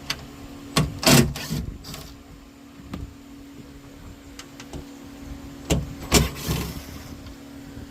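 The T20 Torx screws holding the factory rear door speaker are being taken out, with short bursts of clicking and rattling about a second in and again around six seconds in. A steady low hum runs underneath.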